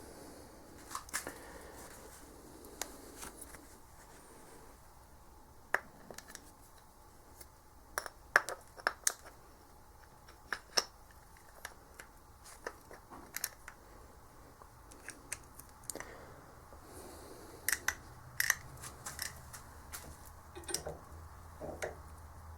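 Irregular sharp clicks and clinks of small metal engine parts being handled, some in quick clusters, as a piston and wrist pin are fitted to a connecting rod.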